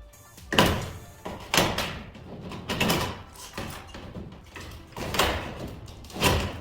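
A series of heavy knocks and thuds, about six at irregular intervals of roughly a second, each ringing out briefly.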